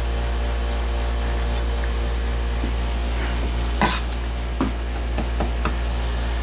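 A steady low hum runs throughout, with a few light knocks and clatters of wooden parts being handled and test-fitted, most of them in the second half.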